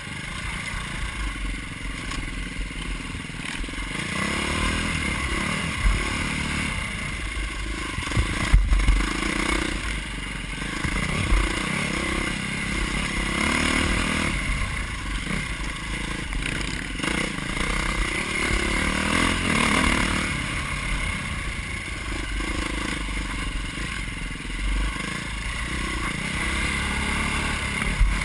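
Dirt bike engine running as the bike is ridden along a rough trail, rising and falling with the throttle, with chassis clatter and a few sharp knocks from bumps, the loudest about eight seconds in.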